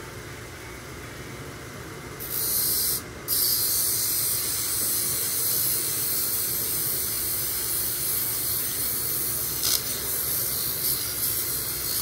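Flat lap's motor humming under the steady hiss of an azeztulite stone being ground on the spinning wet lap disc. The hiss starts about two seconds in, breaks off for a moment about a second later, then carries on.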